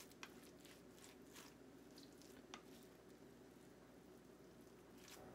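Near silence: faint room hum, with a few soft clicks and squishes from a spatula stirring tuna salad in a glass dish.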